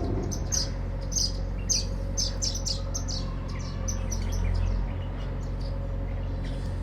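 Sparrows chirping: many short, high chirps in quick succession, thinning out after about three seconds, over a steady low hum.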